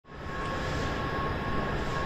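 Steady ambient rumble and hiss of a large glass-roofed railway station hall, with a steady high whine on top.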